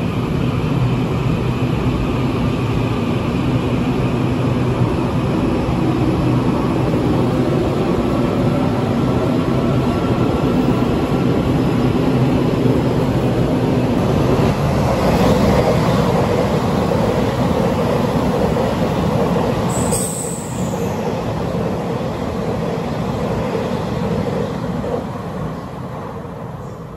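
Taiwan Railway EMU800 electric multiple unit rolling into an underground station with a steady motor hum. About halfway through, this gives way to an EMU3000 express train running through at speed without stopping, a loud rushing rumble that fades near the end as the train moves away.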